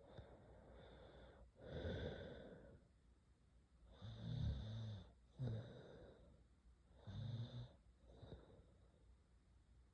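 A sleeping girl breathing and snoring faintly. There are about six breaths, one every one to two seconds, and three of them, from about four seconds in, carry a low vibrating snore.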